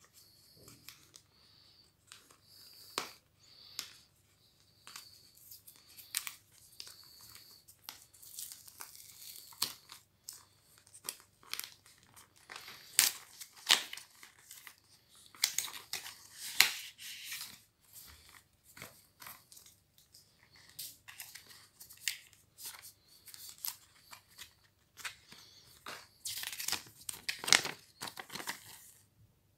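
Hands opening a cardboard product box: scratching and tearing at the box's seal, pulling the box open and rustling paper leaflets. It is a steady run of short scrapes, taps and crinkles, with louder rustling bursts in the middle and near the end.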